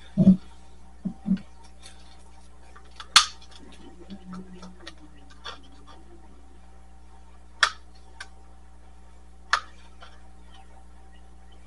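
Scattered knocks and clicks of plastic resin cups and silicone molds being handled on a work table, over a steady low hum. There are two or three dull knocks in the first second and a half, one sharp click about three seconds in, and a few lighter clicks later.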